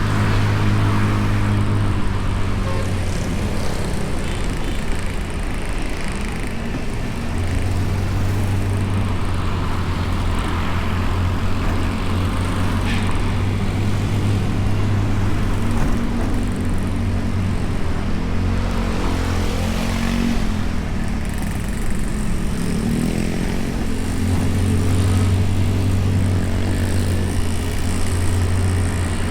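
Honda Beat scooter's small single-cylinder engine running under way, with tyre and traffic noise, picked up by a camera mounted on the bike. The engine hum stays steady and wavers in pitch about two-thirds of the way in.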